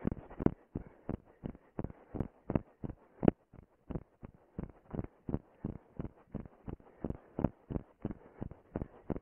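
A runner's footfalls on grass, a steady series of thumps at about three a second, heard through a camera worn on the running body.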